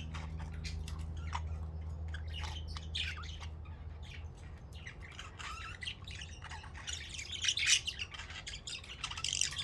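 A flock of budgerigars chattering, with many short overlapping chirps and squawks that grow busiest about seven to eight seconds in. A steady low hum sits under the first few seconds and then fades.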